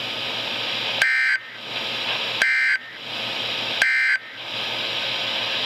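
Three short bursts of EAS digital data tones, the end-of-message code that closes a NOAA Weather Radio alert, each a fraction of a second long and about a second and a half apart. Steady radio hiss fills the gaps and runs on after them.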